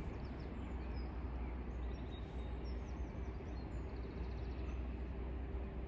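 Outdoor background: a steady low rumble with small birds chirping faintly and briefly throughout, mostly in the first few seconds.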